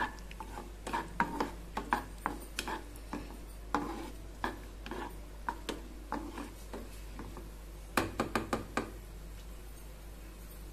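A spatula stirring cashews and raisins in ghee in a non-stick kadai: irregular knocks and scrapes against the pan, with a quick run of knocks near the end before the stirring stops.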